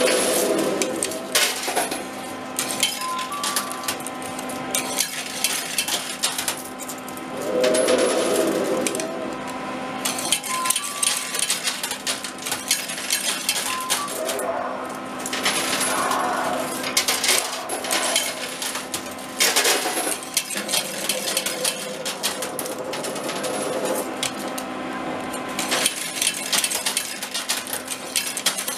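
Metal coins clinking and clattering in a coin pusher arcade machine as coins drop onto the shelves and are pushed against the pile, with many quick sharp clinks throughout. A steady hum runs underneath.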